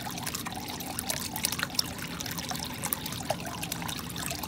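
Water gurgling and splashing where an Eheim Compact On 600 submersible aquarium pump pushes a weak jet up through the water surface, with a steady patter of small splashes.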